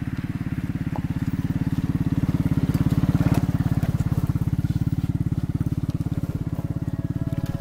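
A small engine running steadily with an even, rapid pulse, with a brief louder rush of noise about halfway through.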